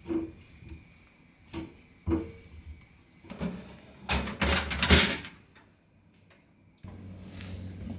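Knocks and clatter of refrigerator drawers and containers being handled: a few single knocks, then a louder stretch of rattling about four to five seconds in. Near the end a steady low hum comes in suddenly.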